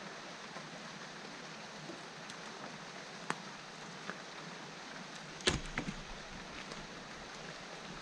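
Wooden knocks as cut tree branches are handled and dropped: two light clicks, then a louder cluster of knocks about five and a half seconds in, over a steady hiss.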